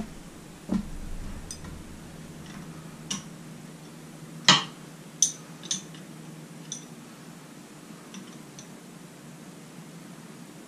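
Scattered metal clinks and taps of a wrench on an outboard's carburetor mounting bolts, about ten in all, the loudest about four and a half seconds in, over a low steady hum.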